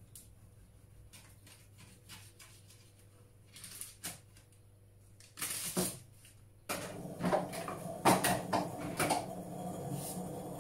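Kitchen counter handling sounds: light clicks and paper rustling, then from about two-thirds of the way through a busier run of clatter and knocks of dishes and utensils.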